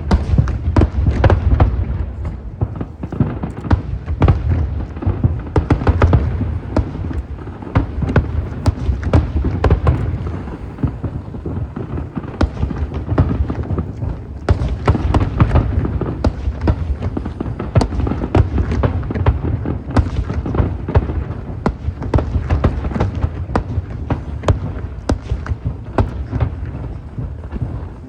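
Aerial fireworks going off in rapid succession: heavy low booms overlapping with many sharp cracks, with no pause.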